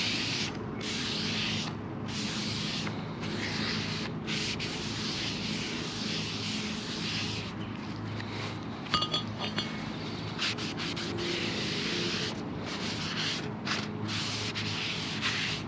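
Aerosol brake cleaner hissing onto a new brake rotor in repeated long bursts with short breaks, washing off the rotor's factory grease coating. There are a few light metallic clinks about nine seconds in.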